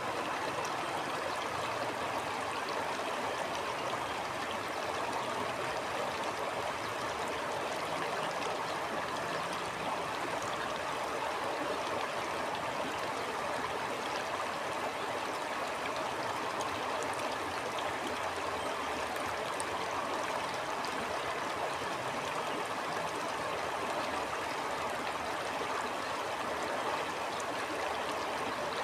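A stream flowing steadily: an even, unbroken rush of running water.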